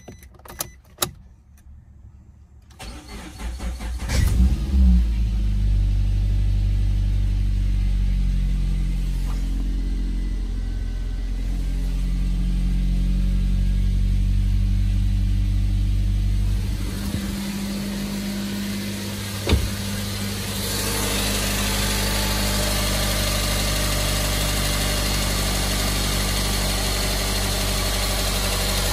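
Suzuki SX4's J20A 2.0-litre four-cylinder engine started from cold: a few clicks as the key turns, a brief crank, then the engine catches about four seconds in and settles into a steady fast idle at around 1,500 rpm. About two-thirds of the way through there is a single sharp click, and after that the idle is heard from the open engine bay, with more hiss.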